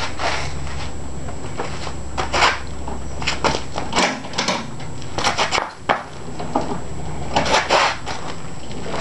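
Irregular knocks, clunks and scrapes of handling over a steady low hum: a metal paint can being set under the lawn tractor as a makeshift jack stand.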